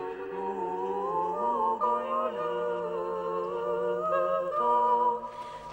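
Russian Orthodox church choir singing unaccompanied: a low held bass note under slowly moving upper voices, in a solemn chant that breaks off just before the end.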